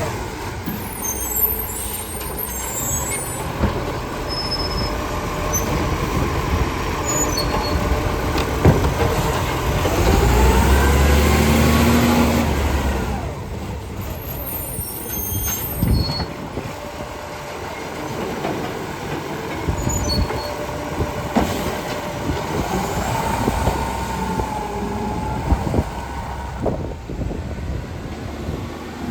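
Garbage truck running, its engine revving up and dropping back about ten seconds in and again later, with short hisses typical of air brakes.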